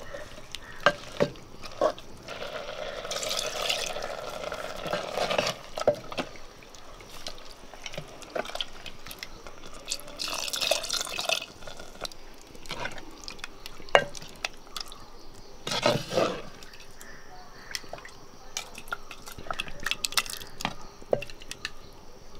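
A coconut-shell ladle stirring coconut-paste papaya curry in a clay pot, knocking now and then against the pot's side, with wet sloshing as water is poured in and mixed through.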